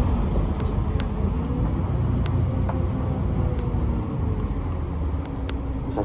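Mitsubishi Fuso Aerostar city bus under way, heard from inside: a steady diesel engine and road rumble with a faint whine that rises and falls, and a few light rattles from the cabin.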